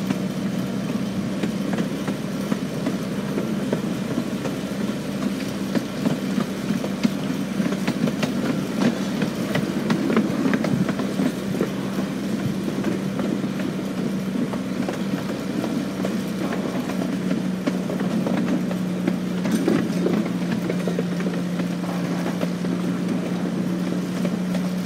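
Riding on a 1/3-scale miniature train: the locomotive runs with a steady low hum while the cars' wheels click and rattle irregularly over the track.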